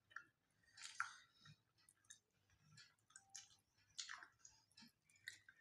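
Faint eating sounds: fingers mixing rice and curry on a steel plate, with short wet clicks and smacks of chewing, the sharpest about a second in.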